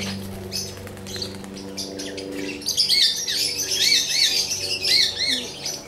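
A flock of caged parakeets chirping and squawking, with a run of quick repeated rising-and-falling chirps in the second half.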